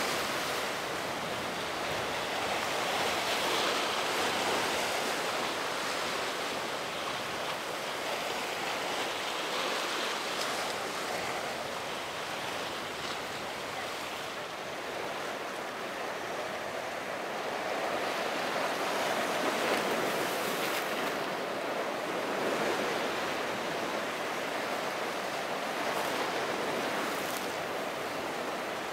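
Surf in a rough ocean inlet: a steady wash of breaking waves and rushing water that swells and eases slowly.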